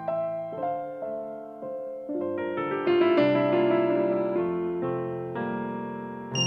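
Pantech Breakout phone ringtone: an electric-piano melody of single notes over held chords. Right at the end it gives way to a different sound with a bright, steady high tone.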